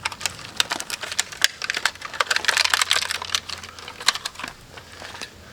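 Rapid, irregular light clicking and rattling of small plastic parts worked by hand, as the factory daytime running light bulb is pulled from its socket.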